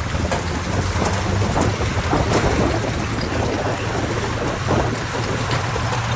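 Heavy diesel earthmoving machinery running steadily with a low engine drone, and scattered clanks and rattles over the top.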